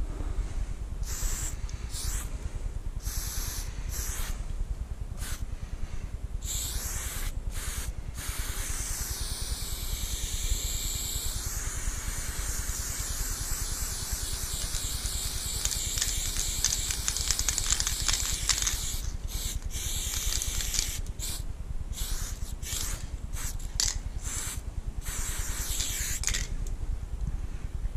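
Aerosol spray-paint can hissing, first in short bursts, then in one long unbroken spray of about ten seconds in the middle, then in short bursts again.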